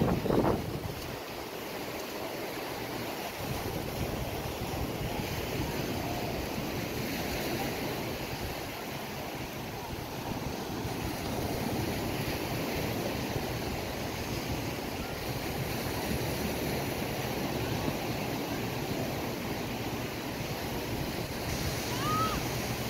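Small waves washing onto a sandy shore with steady wind noise on the microphone: an even, unbroken hiss of surf and wind. A brief louder noise right at the start.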